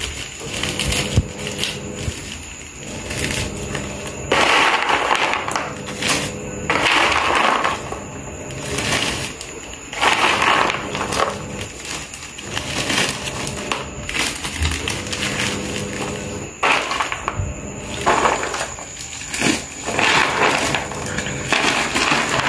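Clear plastic bags crinkling and crisp fried kuih siput rattling as they are scooped from a plastic tub into the bags, in repeated short bursts.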